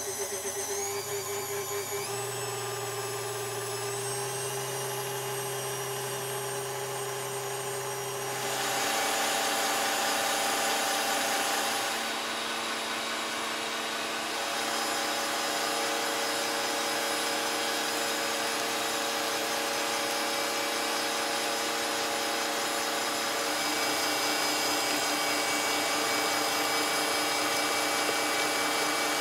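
Small electric kitchen appliance motor running steadily. It steps up in speed in the first two seconds, then changes pitch and gets louder about eight and a half seconds in.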